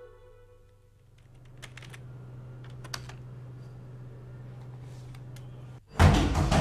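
Desktop computer keyboard typing: a few scattered key clicks over a steady low hum, while a music note fades out in the first second. About six seconds in, a loud clattering noise cuts in abruptly.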